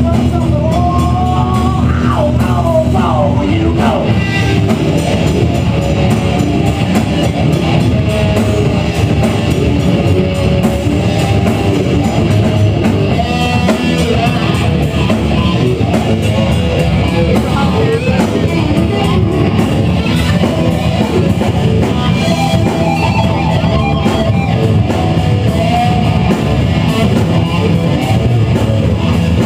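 Live rock band playing loud and without a break: electric guitar over a drum kit.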